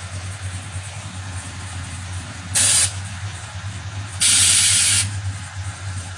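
Air-ride suspension valves on a pickup venting air from the air bags in two sharp hisses, a short one and then a longer one lasting nearly a second, as the truck is let down. A steady low hum continues underneath.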